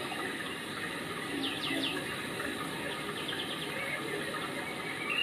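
Steady rushing noise like running water, with a few quick high chirps about a second and a half in.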